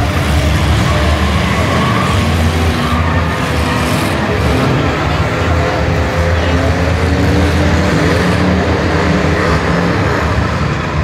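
Several demolition derby cars' engines running and revving, their pitch rising and falling, over a steady low drone.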